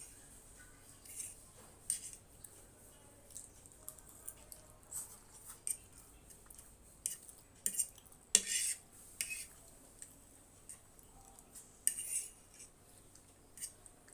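Cutlery clinking and scraping against a dish while instant noodles are eaten, in irregular short taps, the loudest about 8 seconds in and again near 12 seconds.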